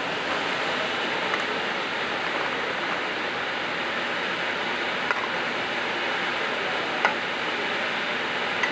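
Steady rushing hiss of a commercial kitchen exhaust hood fan, with a few faint clicks of metal tongs against plates.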